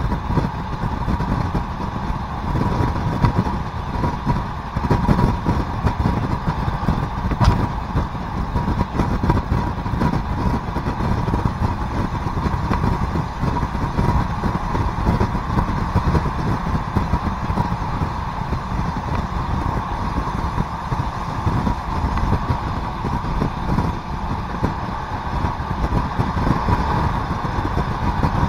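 Italian ALn 668 diesel railcar running along the line, heard from on board: a steady rumble of the underfloor engine and wheels on the rails with a faint steady whine. A single click comes about seven and a half seconds in.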